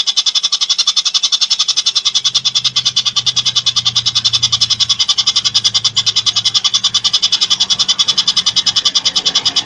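A bird call made of very rapid, even pulses, about a dozen a second, high and sharp and unbroken, like a fast rattling trill. A faint low hum comes in about two seconds in.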